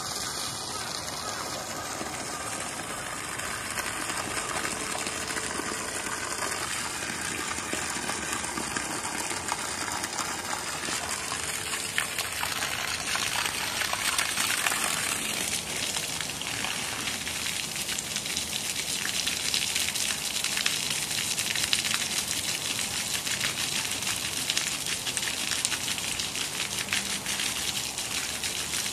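Water spraying in a steady gush and splashing onto grass, growing brighter and a little louder about halfway through as the spray comes closer.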